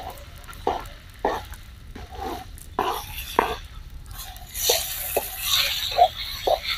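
A metal ladle scraping chopped tomatoes off a plastic cutting board into a hot steel pan, a series of short strokes about half a second apart. About halfway through, the tomatoes sizzle in the pan as the ladle stirs them.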